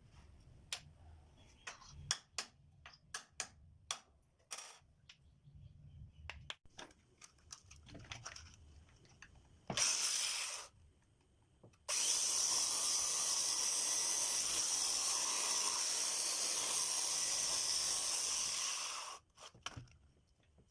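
Scattered clicks and knocks of tools and parts being handled, then a short burst and about seven seconds of a power tool running steadily before it stops.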